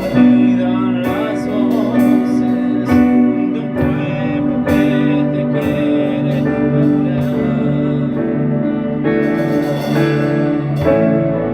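Music played on guitar, with held notes over a steady run of plucked chords.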